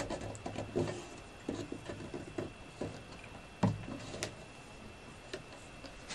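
Thin bent wooden strip knocking and clicking against a small wooden frame as it is handled and pressed into place. A quick run of light knocks comes first, one louder knock a little past halfway, then a few sharp clicks.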